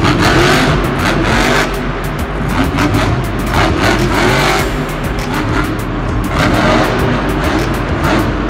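Full-size monster truck's supercharged V8 engine revving hard, its pitch repeatedly climbing and dropping, with music behind it.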